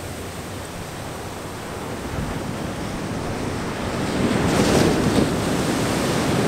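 Ocean surf breaking and washing up onto a sandy beach, growing louder about two-thirds of the way through as a wave breaks, with wind buffeting the microphone.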